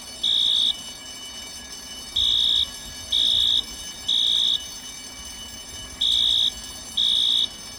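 Building fire alarm horn sounding a high-pitched beep in the temporal-three evacuation pattern: half-second beeps a second apart in groups of three, with a longer pause between groups. The pattern is the standard signal to evacuate the building.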